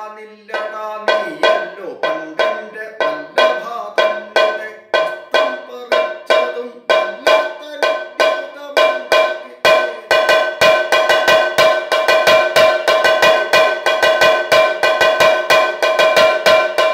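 Chenda, the stick-played Kerala barrel drum, beaten in a steady rhythmic pattern of ringing strokes as a Kathakali tala demonstration. The strokes are about two to three a second at first and speed up to roughly four or five a second about ten seconds in.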